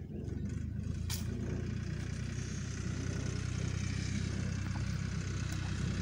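Tractor engine running steadily as it pulls a plough through the field, a low even drone, with a sharp click about a second in.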